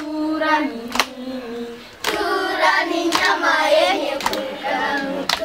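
A group of children singing a song together, with sharp hand claps about once a second keeping the beat.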